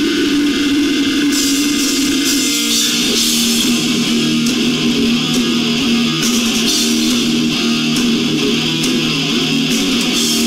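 Death metal band playing live, with heavy distorted electric guitars holding long low chords that drop to a lower chord about three seconds in.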